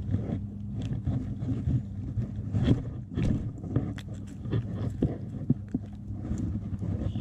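Close handling noise: cotton sweatshirt sleeves rustling, with irregular small clicks and scrapes, as a hook is worked free from a largemouth bass's mouth. A steady low hum runs underneath.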